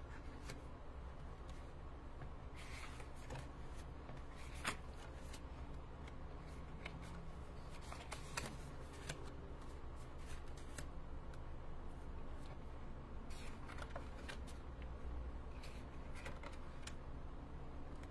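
Stack of cardstock cards being flipped through and laid down on a cutting mat: irregular papery rustles and light taps, with one sharper click a little under five seconds in. A low steady hum runs underneath.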